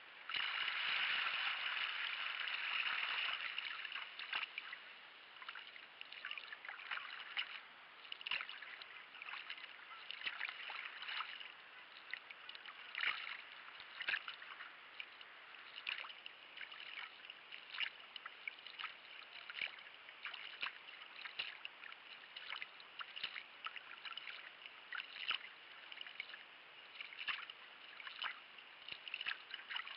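Kayak paddle blades dipping and splashing in calm sea water, in an uneven rhythm of about one stroke a second. A louder rush of water fills the first three or four seconds.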